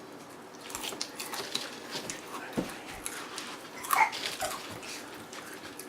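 Small scattered clicks and crackles of eating crunchy snacks, with a thud about two and a half seconds in and a short high squeak or whine about four seconds in.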